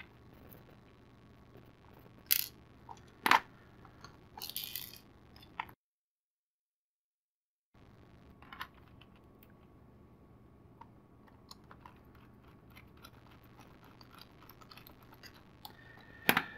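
Small plastic clicks and taps from hands fitting white plastic gears onto their shafts in a hollow plastic toy shell and driving a small screw with a precision screwdriver: a few sharper clicks, a short rustle, then light scattered ticking. The sound drops to dead silence for about two seconds in the middle.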